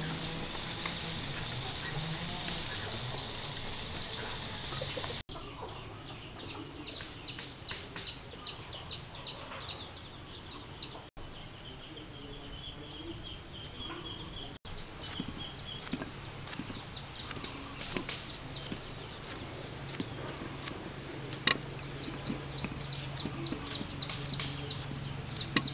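Chickens calling: rapid, high, falling peeps repeat throughout. A steady hiss runs under them for about the first five seconds, and a few short clicks come later.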